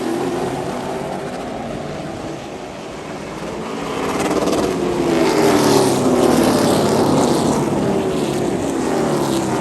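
Several race car engines running at speed, their pitch rising and falling as they accelerate and back off. The sound grows louder from about four seconds in.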